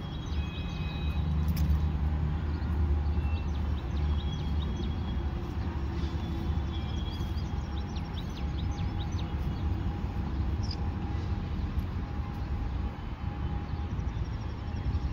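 A steady low rumble, with small birds chirping and twittering in short high notes over it.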